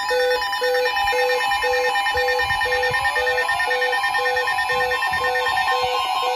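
Layered electronic tones: a short beep pulsing about twice a second over steadier higher tones, with a rising sweep about two and a half seconds in.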